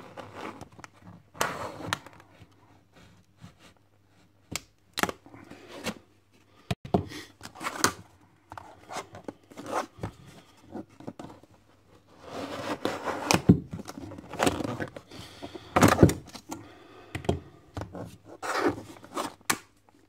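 Hard plastic clamshell packaging being cut with a dull serrated knife and then flexed and pried by hand: irregular crackling, scraping and tearing with sharp knocks.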